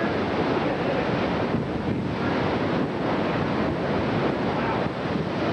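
Strong, gusty wind rushing over and buffeting the camcorder microphone in a steady noise, as a large tornado passes close by.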